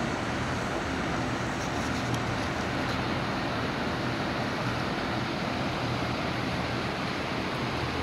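A steady rushing noise with a faint low hum under it, unchanging throughout.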